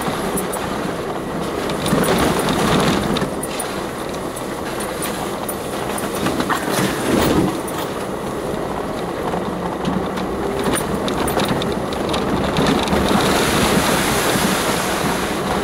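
Off-road vehicle driving slowly over a rough, muddy dirt track, heard from inside the cab: the engine runs steadily under tyre and body noise, with scattered knocks and rattles from the bumpy ground.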